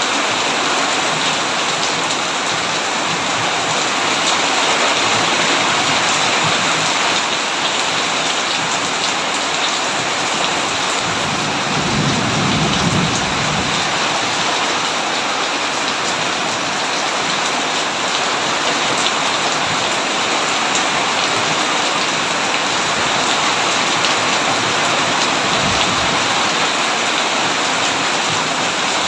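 Heavy rain falling steadily, with a low rumble of thunder about twelve seconds in.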